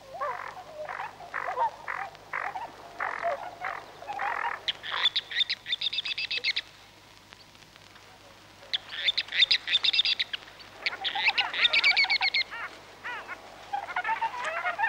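Wild birds calling: a string of short repeated calls, about two or three a second, then several bouts of fast, high trills with a short pause between them, and warbling calls near the end.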